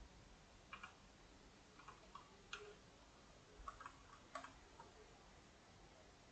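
Faint, scattered clicks of a computer mouse and keyboard, about eight short clicks in the first five seconds, some in quick pairs, over near-silent room tone.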